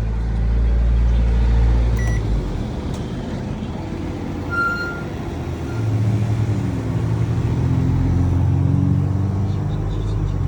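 Repaired microwave oven running with a steady low electrical hum. The hum weakens about two seconds in and comes back stronger around six seconds in, with two short high beep-like tones in between.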